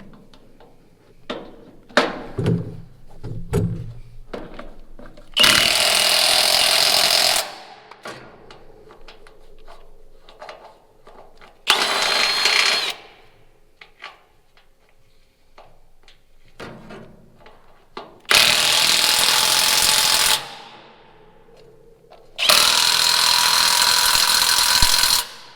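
A power tool run in four bursts of one to three seconds each, with clinks and knocks of metal parts and hand tools between the bursts.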